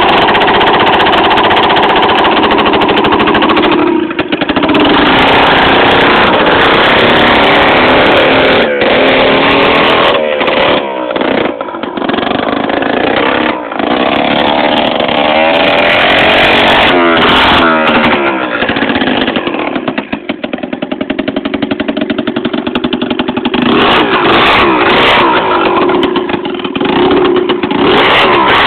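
Piaggio Free two-stroke scooter engine, loud, being revved up and down again and again, with the pitch climbing and falling back. It eases off briefly a few times, longest about two-thirds of the way through.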